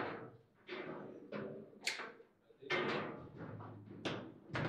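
Table football in play: the hard ball being struck by the rod figures and knocking off the table's walls. About half a dozen sharp knocks, each ringing out briefly, with a low rumble of the table between them.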